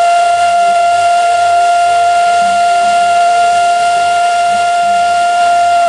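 A steam locomotive's whistle blowing one long, steady note over the hiss of escaping steam. It cuts off suddenly at the very end.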